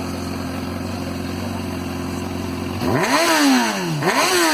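Honda CBR600F inline-four motorcycle engine idling steadily through a loud aftermarket sport exhaust, then blipped twice near the end, the pitch shooting up and falling back each time.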